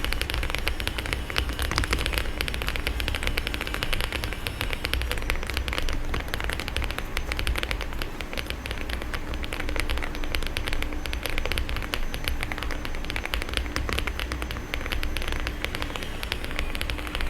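Rapid, continuous typing on an Inky75 aluminium mechanical keyboard: a dense stream of key clicks and clacks from its double-shot PBT keycaps and switches.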